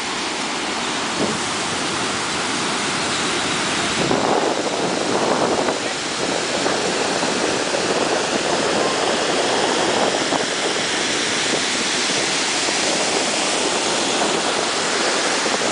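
Ocean surf breaking and washing up the beach: a steady rush of white water that grows a little louder about four seconds in.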